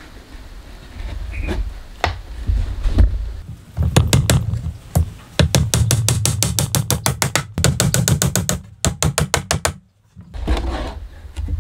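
A hammer driving nails into a plywood box, in fast runs of sharp blows several a second, stopping abruptly near the end.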